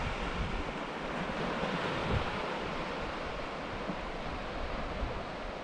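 Gentle surf washing onto a shallow sandy beach, a steady wash of small waves, with wind gusting on the microphone now and then.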